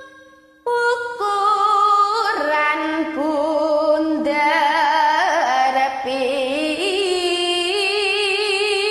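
A girl sings a Javanese gendhing solo, held notes with wavering ornaments and vibrato. Her voice comes back in under a second after a short breath pause.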